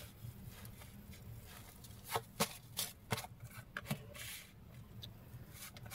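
Faint handling of a deck of oracle cards: soft flicks and taps as cards are drawn from the deck and laid down, with a handful of short clicks in the middle.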